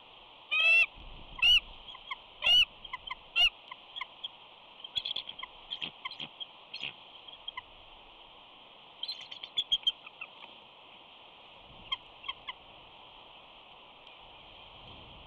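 Bald eagles calling to each other between mates. Four loud, high calls come in the first few seconds, followed by quicker, fainter chittering notes, with another flurry about nine seconds in and a few more notes near twelve seconds.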